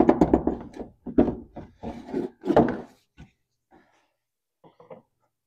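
Clunks and knocks from an engine-driven cooling fan being worked into place under the hood, a quick run of hard knocks over the first three seconds, then a few faint taps.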